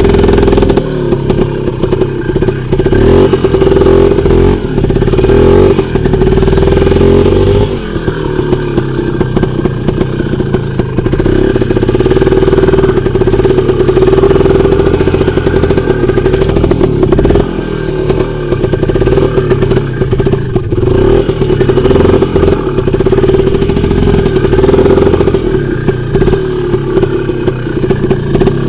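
Off-road motorcycle engine running under load while the bike rides through a muddy rut. Its revs rise and fall every few seconds as the rider works the throttle.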